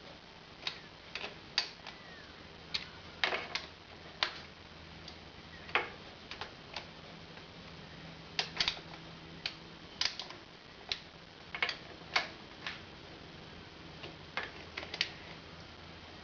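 Irregular sharp clicks and light taps, one or two a second, as tools and engine parts are handled during work on a motorcycle engine's top end.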